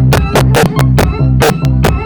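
Loud electronic dance music with a fast, even drum beat of about four hits a second over a heavy, repeating bass line.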